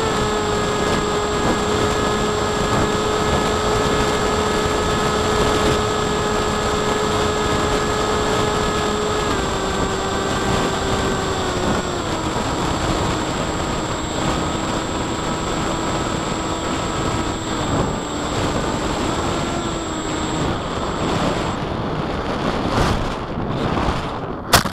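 Emax 2805 2800kv brushless motor spinning an APC 5x5E prop on a foam-board flying wing, heard from the onboard camera: a steady propeller whine over rushing wind noise. The whine steps down in pitch twice as the throttle is eased back, fades out near the end, and the wing strikes the ground with a sharp crack at the very end.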